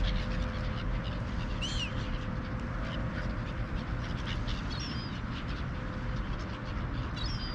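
Gulls at a feeding spot give a few short, high calls, one about two seconds in and others around five seconds and near the end, over a steady outdoor rush and a faint steady hum.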